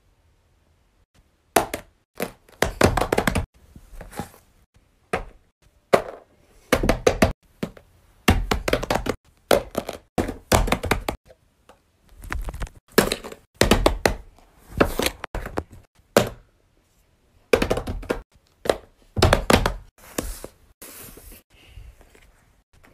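Fidget toys being handled and set down by hand: irregular clusters of thunks, knocks and taps with short quiet gaps between them.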